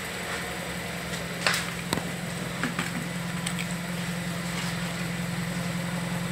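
Volkswagen 1.2 TSI (CJZA) four-cylinder turbo petrol engine in a Golf VII idling steadily, with an even low hum. A couple of sharp knocks come about a second and a half in.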